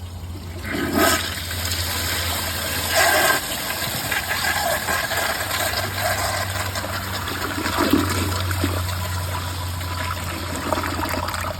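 A 2011 Glacier Bay toilet flushing with its siphon jet clogged. The flush starts about a second in, surges loudly a couple of seconds later, then water rushes and gurgles down through the bowl.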